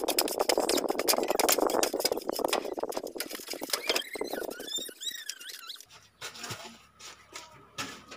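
Hands scraping and patting wet cement mortar into place around a plastic bottle used as a sink drain, a dense gritty crackle. About four seconds in there are a few brief high squeaks, and after that the sound turns quieter with scattered small clicks.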